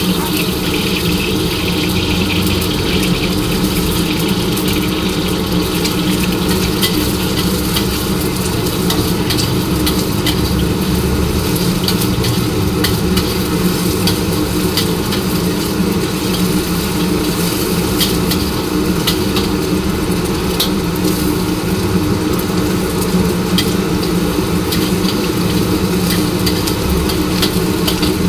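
Kwetiaw (flat rice noodles) being stir-fried in a wok: a steady sizzle with scattered clicks and scrapes of the spatula, over a loud, steady, low mechanical drone.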